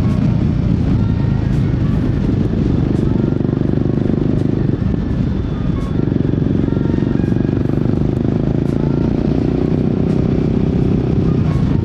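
Royal Enfield Guerrilla 450's single-cylinder engine and exhaust running under way, with a short dip in level about five seconds in before it carries on steadily.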